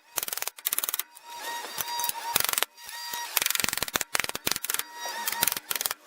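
Ratchet wrench clicking in quick runs with short pauses, as the bolts holding a Jeep Cherokee's front wheel bearing hub are turned out.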